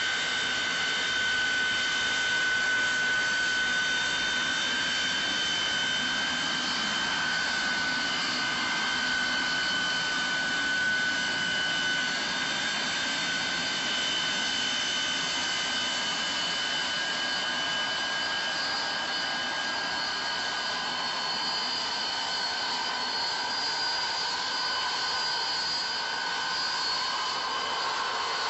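Rail-mounted rotary snow blower running and throwing snow: a steady rushing noise with a high whine on top that holds its pitch throughout.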